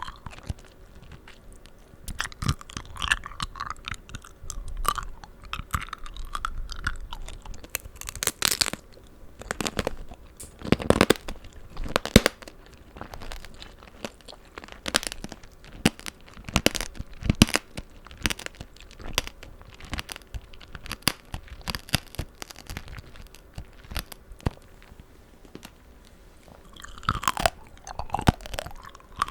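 Close-miked eating of tanghulu: the hard candy shell on the fruit cracks and crunches between the teeth in many sharp, irregular crackles, with softer wet chewing between them.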